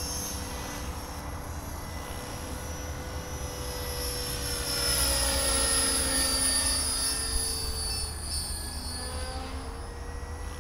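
Radio-controlled model helicopter flying overhead: a steady high whine from its motor and spinning rotors, with the pitch sliding up and down slowly. It grows louder about halfway through and then falls away again.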